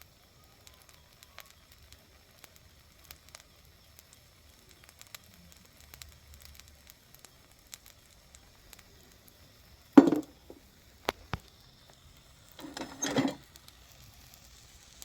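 Pancake batter frying in butter in a pan on a gas camp stove, a faint steady sizzle with light crackles. Two brief louder sounds break in, one about ten seconds in and one about thirteen seconds in.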